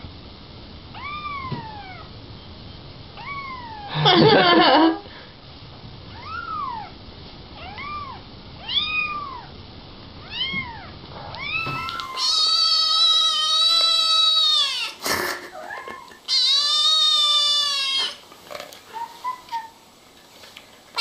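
Kittens meowing: a young kitten gives short, high meows, about one a second, with one louder cry about four seconds in. After about twelve seconds a kitten gives long, drawn-out meows of two to three seconds each, with a short click between the first two.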